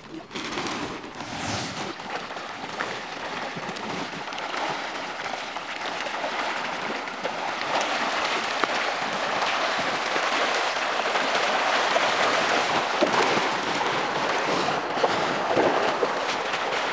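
Crowds of pangas (Pangasius catfish) thrashing and splashing at the pond surface as they feed on thrown pellets, a dense crackling splash like heavy rain that grows louder over the first several seconds.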